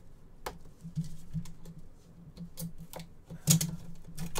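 Irregular clicks and taps of gloved hands working at the lid of a tight-fitting trading-card box that will not open, the loudest about three and a half seconds in.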